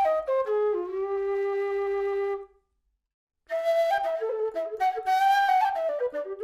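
Nightingale low whistle (Karavaev's aluminium-bodied model with a plastic head) playing a melody. It steps down to a long held low note, breaks off for about a second, then resumes with a quicker, ornamented phrase.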